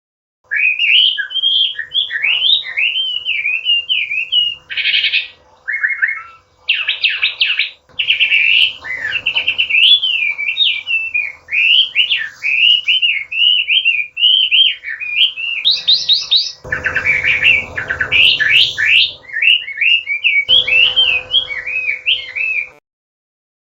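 Chinese hwamei singing a long, varied song of loud whistled phrases that slide up and down, broken by quick runs of repeated notes; it starts about half a second in and stops abruptly near the end. A faint steady hum sits underneath.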